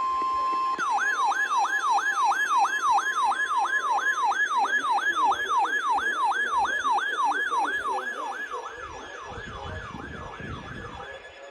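A steady weather-radio alert tone, the 1050 Hz NOAA Weather Radio warning alarm tone, cuts off under a second in. An alert receiver's electronic siren alarm follows at once: fast falling sweeps, about three a second, that fade away over the last few seconds.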